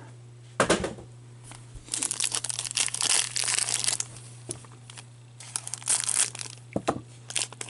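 Silver foil wrapper of a thick 2012-13 Limited hockey card pack crinkling in bursts as gloved hands handle it, then cut open with scissors near the end, with a few sharp clicks.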